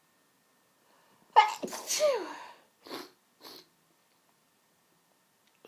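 A woman sneezing once during a sneezing fit: a sharp, loud burst with a cry that falls in pitch. Two short breathy sounds follow about a second and two seconds later.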